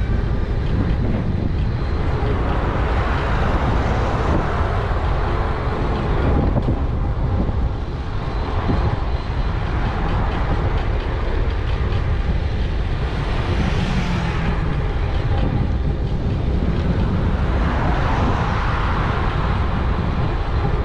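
Wind buffeting an action camera's microphone on a moving e-bike, over a steady rumble of tyres on the road. Louder hissing swells rise and fall every few seconds.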